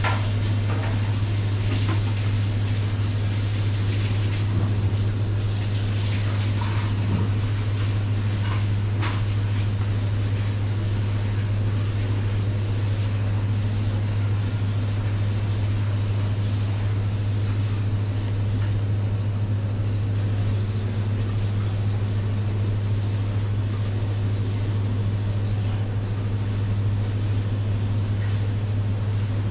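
A loud, steady low machine hum, unchanging throughout, with a few faint clicks about seven and nine seconds in.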